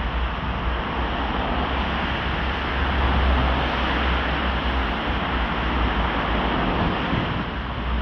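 Steady road traffic noise, with wind rumbling on the microphone.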